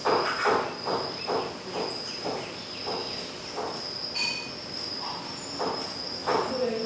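Cicadas droning in one steady, high-pitched tone, with a run of soft thuds about two a second, loudest near the start and the end.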